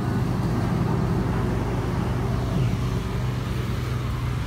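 Steady low hum of a showcase refrigerator's compressor running while refrigerant is being charged into the system.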